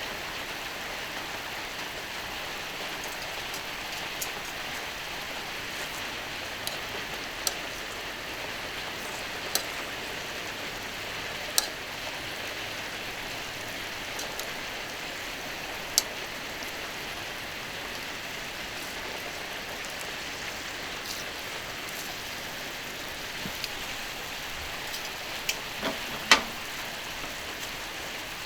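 Skirt steak sizzling on a hot iron griddle: a steady hiss with scattered sharp pops of spitting fat, the loudest near the end.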